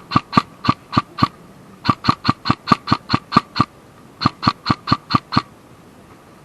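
Airsoft gun firing rapid single shots, about four a second, in three strings with short pauses between them.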